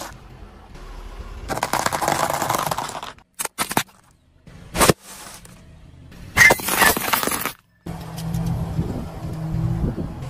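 A car tyre rolling over snack food on asphalt and crushing it: a stretch of crunching from a pile of tortilla chips, a few short clicks, then a loud sharp crackling as a bag of crisps is flattened. A low steady hum sets in near the end.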